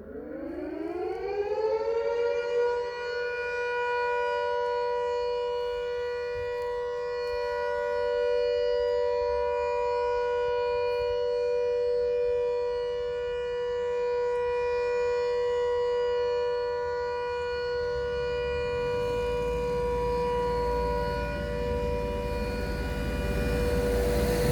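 The State Hospital's escape siren being tested. It winds up in pitch over the first couple of seconds, then holds a loud, steady two-note wail.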